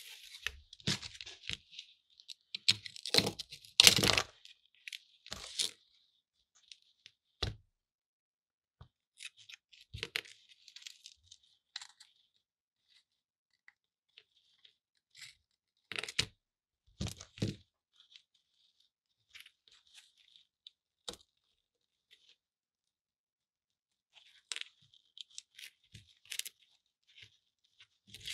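Brittle, rust-corroded layered parts of an old electric railroad lantern crackling, crunching and snapping as they are prised and broken apart by hand, with flakes breaking off. Irregular cracks and short scrapes, the loudest cluster about three to four seconds in, then scattered snaps.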